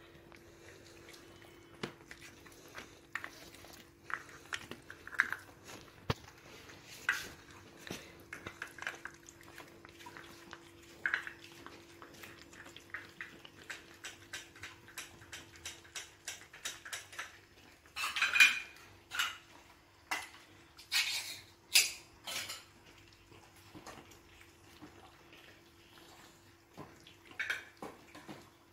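Several cats eating wet cat food from plastic trays: many quick wet chewing and licking clicks, with teeth and tongues knocking against the plastic, and a few louder clattering bursts between about 18 and 22 seconds. A faint steady hum runs underneath.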